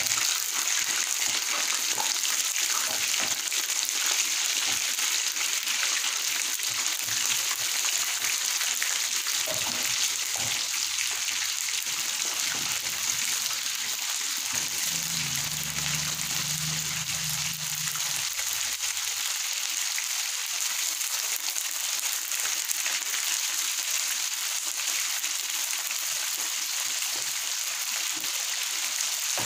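Batter-coated chicken pieces deep-frying in hot oil in a pan, a steady sizzle and crackle of bubbling oil. The chicken is being fried a second time.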